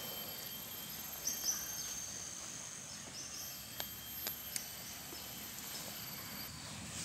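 Faint outdoor ambience of insects trilling steadily at a high pitch, with a few short high chirps and several light clicks around the middle.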